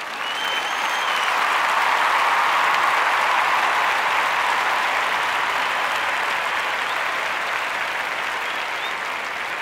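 Audience applauding: a dense, steady clapping that swells over the first couple of seconds and slowly tapers off.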